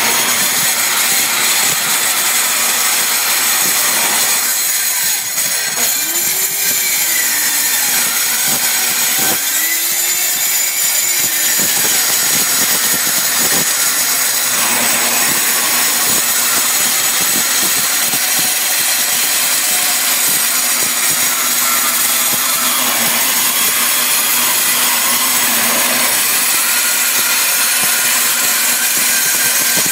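Milwaukee 13-amp 8-inch metal-cutting circular saw cutting through steel: a continuous loud, high-pitched cutting noise, with the motor's pitch bending down and back up a few times under load.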